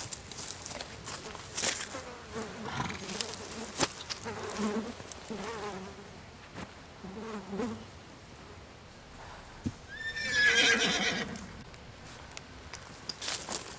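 A horse whinnies loudly for about a second and a half near the end. Before it come several short low-pitched sounds and scattered clops of hooves.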